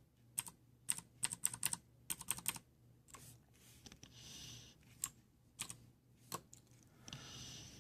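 Cherry MX Blue mechanical keyboard switches clicking as keys are pressed: quick runs of presses in the first couple of seconds, then a few single presses spaced out.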